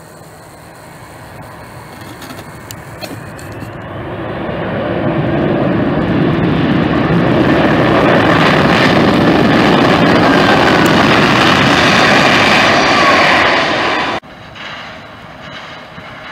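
Delta Airbus A330 landing: after touchdown its jet engines swell to a loud, steady rush as it rolls out and slows on the runway with reverse thrust. The noise cuts off suddenly about fourteen seconds in.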